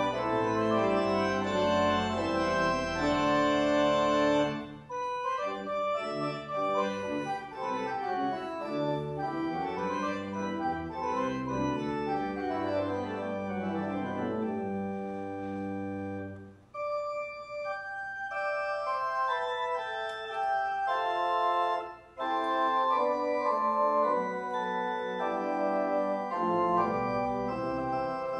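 Organ music: slow, sustained chords, with short breaks between phrases about 5, 17 and 22 seconds in.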